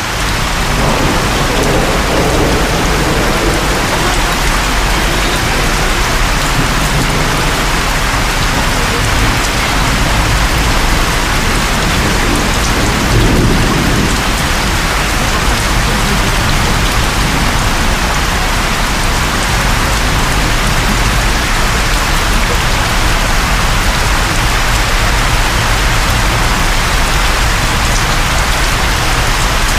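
Heavy rain drumming on a car's roof and windshield, heard from inside the cabin as a loud, steady hiss. A deeper rumble swells briefly near the middle.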